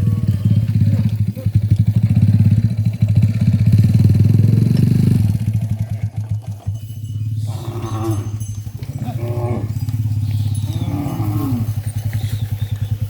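Cattle mooing three times, the last call falling in pitch, over the steady pulsing run of an engine that is louder in the first few seconds.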